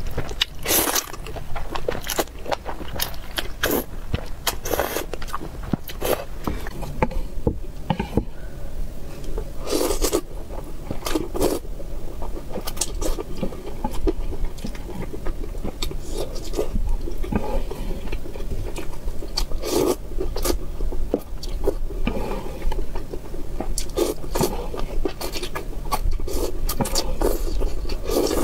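Close-miked eating: glass noodles slurped from a bowl of broth, with wet chewing and mouth clicks in between. Louder slurps come about a second in, around four and five seconds, twice around ten to twelve seconds, around twenty seconds and again at the end.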